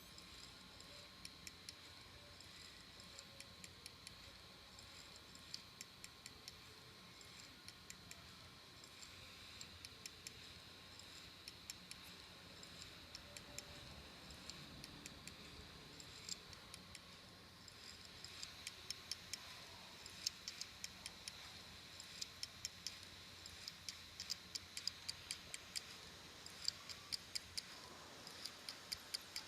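Samsung ST1000LM024 2.5-inch laptop hard drive clicking over and over, faint sharp clicks at uneven intervals that come thicker and louder in the second half, over a faint steady high whine. The clicking is the sign of a damaged read/write head.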